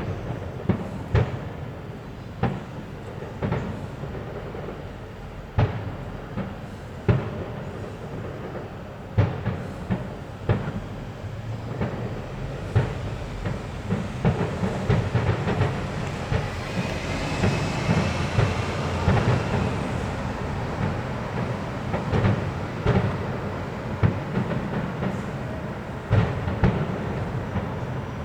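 Fireworks bursting: separate sharp bangs every second or so, thickening about halfway through into a dense, continuous stretch of crackling and rumbling bangs.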